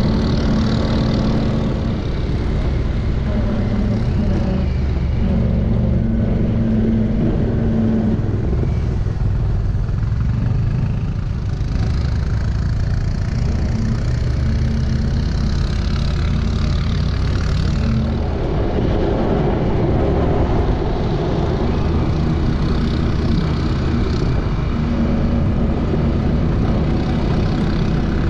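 Side-by-side UTV's engine running on the move at trail speed, heard from the driver's seat with a steady rush of wind and tyre noise. It eases off about ten seconds in as the machine slows for a turn, then pulls back up to speed.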